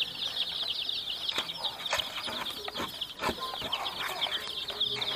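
A crowd of baby chickens peeping continuously, many short falling chirps overlapping in a dense chorus, with a few light taps scattered through it.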